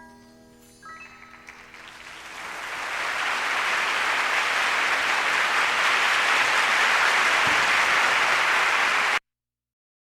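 The last few keyboard notes ring out, then concert audience applause swells over about two seconds and holds steady before cutting off abruptly near the end, as the recording is edited to dead silence.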